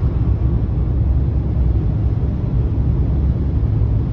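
Steady low rumble of road and tyre noise inside a car cruising along a highway.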